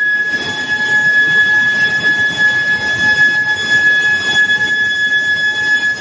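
Induction heating coils of a billet reheating furnace giving off a steady high-pitched electrical whine, over the rough background noise of the running line.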